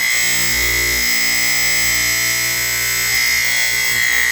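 A collection of smoke alarms all sounding at once, their shrill beeps merging into one loud, steady, piercing din.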